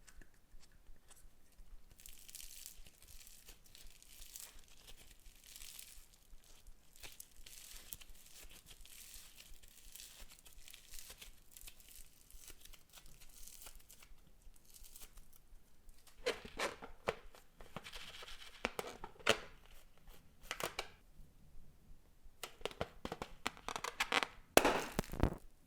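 Slime being worked by hand, making sticky crackling and popping. Soft fizzy crackles come first, then louder bursts of popping and tearing in the second half.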